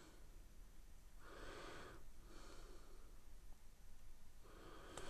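Faint breathing of a man: three soft breaths, about a second in, around two and a half seconds in, and near the end.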